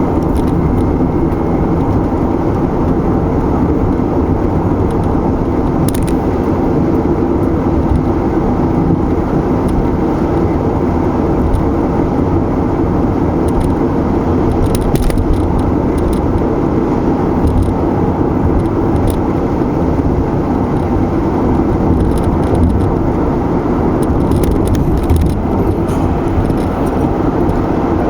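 Steady road noise of a car driving: tyre and engine noise with no change in pace, and a few faint ticks along the way.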